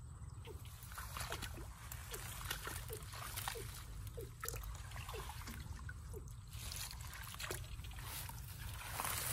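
Shallow rice-paddy water sloshing and splashing as a person wades through it and dips a plastic box and a bamboo fish trap, with a louder splash near the end.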